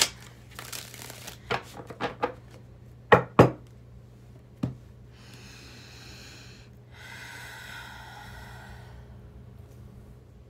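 Albano-Waite tarot deck being shuffled by hand: a dense rush of cards at the start, a few sharp knocks over the next few seconds, then two longer, softer rushes.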